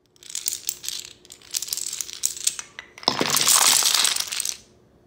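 A chain of toy dominoes toppling: a rapid run of light clicks for about three seconds, then a louder, denser clattering as a heap of dominoes tumbles down, dying away near the end.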